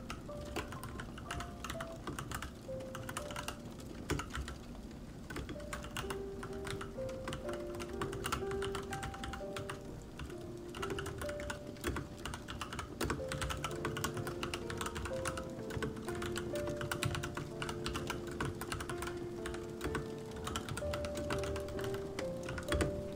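Typing on a Royal Kludge RK87 mechanical keyboard: a dense, continuous run of key clicks, with soft background music underneath.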